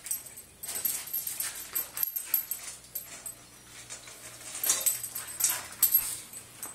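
A golden retriever puppy and another dog nosing at a stainless steel dog bowl: a run of irregular metallic clinks and knocks, busiest and loudest in the second half.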